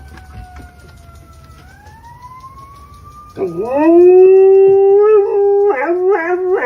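A faint siren wails, falling and then rising in pitch. About three seconds in, a dog joins with a loud, long howl held on one pitch, which then breaks into shorter wavering howls.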